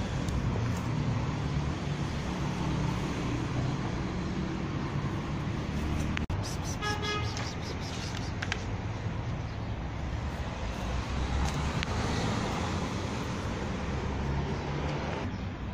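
Steady background rumble of road traffic, with a brief horn toot about seven seconds in.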